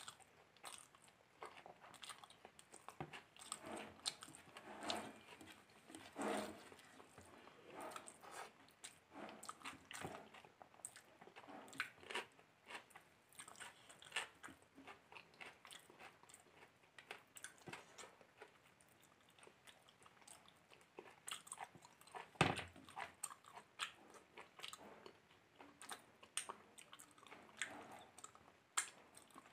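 Close-miked chewing and biting, with crunches, as a person eats a fried chicken chop (breaded meat croquette) with their hands. Short, irregular mouth sounds throughout, with one louder knock about two-thirds of the way through.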